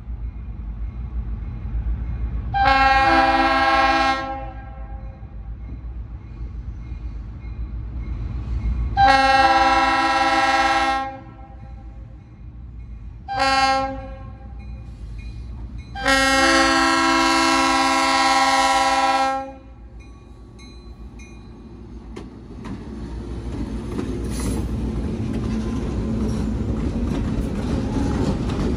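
Diesel locomotive's Leslie RS-3L air horn blowing the grade-crossing signal: two long blasts, a short one, then a long one, each a chord of several tones. After the horn, the locomotives' diesel engines and wheels on the rail build to a loud rumble as they pass close by.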